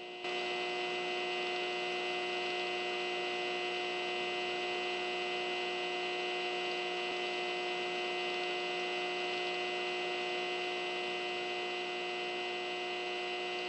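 Fluorescent tube light buzzing: a steady electrical hum made of several constant tones, a little louder a moment in and then unchanging.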